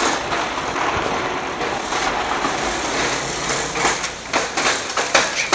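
Hard plastic wheels of a child's push-along baby walker rolling over a concrete walkway, a steady rolling noise. Near the end it breaks up into a few separate knocks and clacks.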